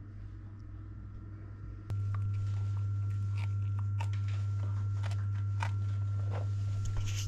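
Dog chewing and crunching on something, a string of small irregular crunches, over a steady low hum that starts about two seconds in.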